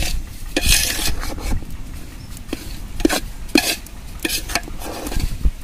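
Perforated metal ladle stirring and scraping semolina around a large metal pot, in irregular swishes with small clinks against the pot. The semolina is being roasted and kept moving so it does not stick and catch at the bottom.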